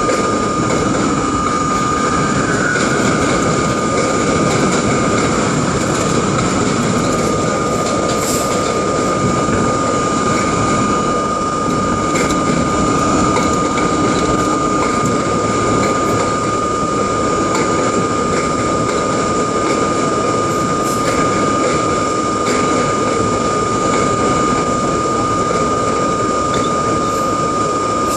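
R32 subway train running along the track, with a loud, steady rumble and rattle of the car and wheels. A single high-pitched tone is held at one steady pitch over it throughout.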